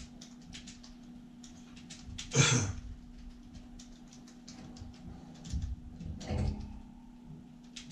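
Siberian husky puppy chewing and worrying a knotted rope toy: small clicks, gnawing and rustles, with a loud sudden noise about two and a half seconds in and a smaller one a little after six seconds, over a steady low hum.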